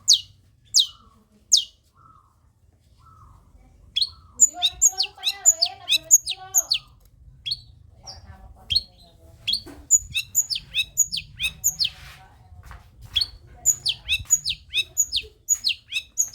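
Long-tailed shrike (cendet) singing: sharp, high notes that slur downward, a few spaced ones at first, then a quick, continuous run of them from about four seconds in.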